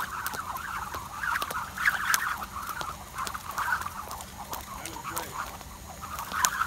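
A skipping rope slapping concrete with sharp, irregularly spaced ticks, along with shoe taps and scuffs from quick jump-rope footwork.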